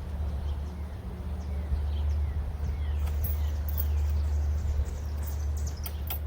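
Steady low rumble with birds chirping, and a few sharp metallic clicks near the end as the steel chain is handled and fed into the carabiner.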